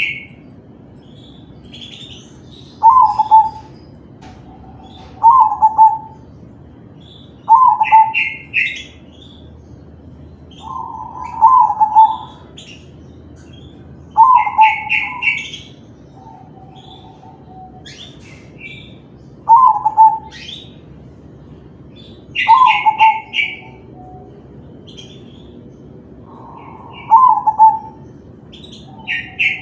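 Zebra dove (perkutut) of a crossbred line cooing, a short phrase repeated every few seconds, about ten times. Higher rapid chirps come in between the coos, several of them as loud as the coos.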